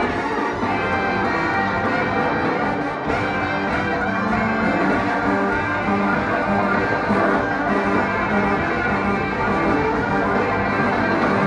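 Live band music played loud, led by a brass section of trumpets, trombones and a sousaphone.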